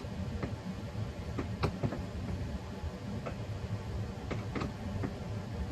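Scattered light clicks and taps from the hardware of an IKEA Kallax insert being handled and fitted, over a low steady background hum.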